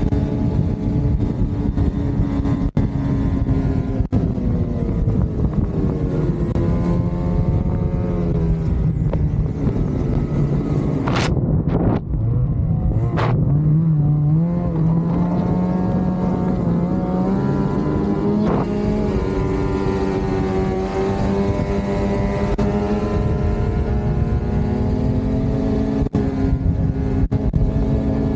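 Lynx Shredder RE 850 Turbo snowmobile's turbocharged two-stroke engine running along a trail through a Jaws trail muffler, its pitch rising and falling with the throttle. About eleven seconds in the throttle is let off briefly, with two sharp clicks, then the engine note climbs again, over a steady low rush of wind and track noise.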